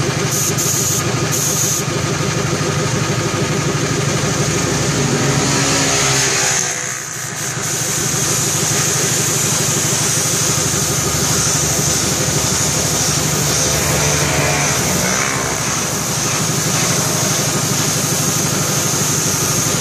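A small engine or motor running steadily, a hum with evenly spaced tones that dips briefly about seven seconds in.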